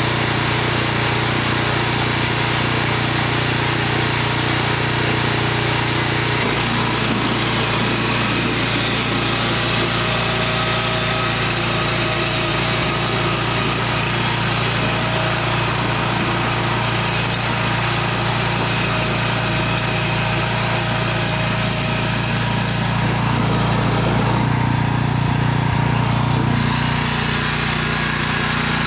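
BCS rear-tine tiller's small gasoline engine running steadily under load as the tines work the soil. Its note shifts about six seconds in and swells a little louder for a few seconds near the end.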